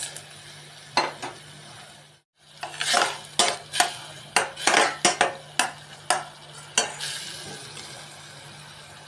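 Spatula stirring and scraping food in a cooking pan: a few clinks, then a quick run of clinks and scrapes in the middle, over faint frying.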